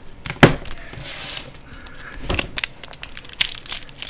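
Foil wrapper of a Pokémon trading card booster pack crinkling and crackling as it is handled and torn open, with a sharp snap about half a second in and more crackles a little after two seconds.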